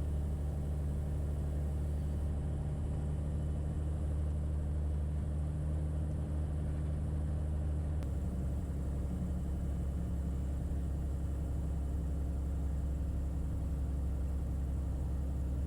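Single-engine Beechcraft A36 Bonanza piston engine running steadily at low power after touchdown, as the plane rolls out and taxis off the runway. The engine note shifts slightly about eight seconds in.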